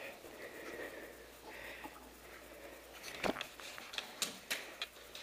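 A few sharp clicks and snaps from a spring-powered airsoft pistol being handled and fired. The loudest comes a little over three seconds in, and four more follow over the next second and a half.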